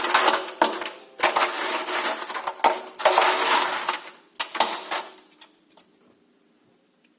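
Frozen mini water balloons and ice pieces clattering and crunching inside a washing machine drum in a run of loud rattling bursts, dying away about five or six seconds in.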